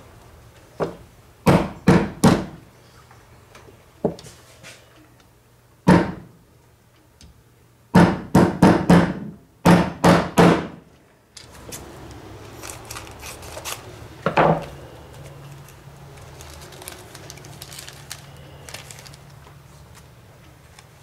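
Hammer blows on a small part on a workbench: about a dozen sharp knocks, mostly in quick bursts of three or four, followed by softer rustling of a plastic parts bag in the second half.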